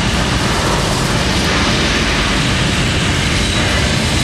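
Saturn V rocket launch roar played back over a theater's loudspeakers: a steady, dense rumble with no letup.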